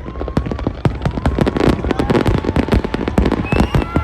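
Fireworks display going off, a dense rapid series of bangs and crackles.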